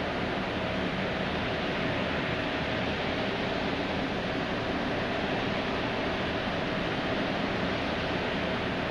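Steady wind rush on the microphone over a constant low machinery hum with a faint steady tone.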